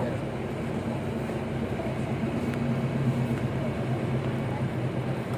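Safari vehicle's engine running steadily with a low, even hum.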